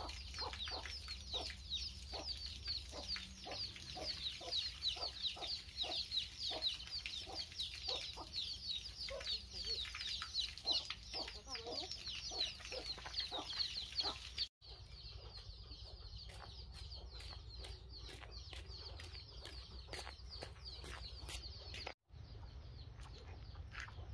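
Chickens: a crowd of chicks keeps up a high, falling peeping, with lower clucks and taps underneath. The sound breaks off for an instant about halfway through, then carries on quieter, and breaks again briefly near the end.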